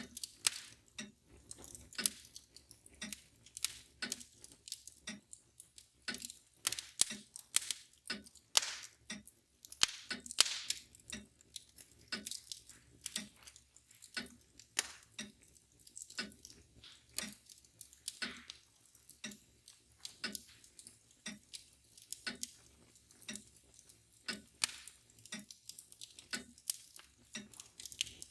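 Wood fire crackling and popping in a fireplace, with irregular snaps of varying loudness, the loudest around ten seconds in. A mantel clock ticks steadily underneath.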